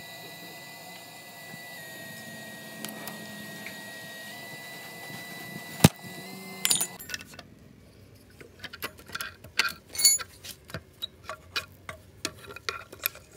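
Scattered metallic clicks and clinks of hand tools, bolts and loose engine parts as the EGR body is unbolted and lifted off a diesel engine. There is one sharp click a little before six seconds in, and from about seven seconds on the clinks come thick and irregular.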